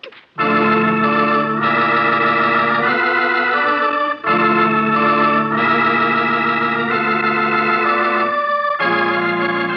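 Organ music bridge marking a scene change in a radio drama: loud sustained chords that change every second or two, with a short break about four seconds in, settling onto a softer held chord near the end.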